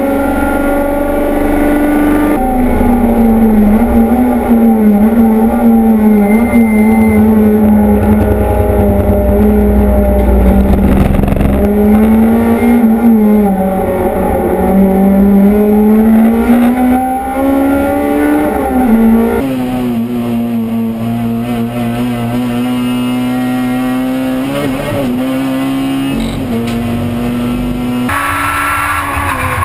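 Racing car engine heard from inside the cockpit, loud, its pitch climbing and dropping again and again as the car accelerates and slows around the track. Near the end the engine note changes abruptly to a different car's engine.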